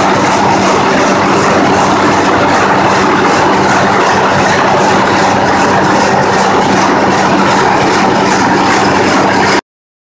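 Sawmill machinery running: a loud, steady industrial din with a constant low hum and rattling noise over it. It cuts out to silence for a moment near the end.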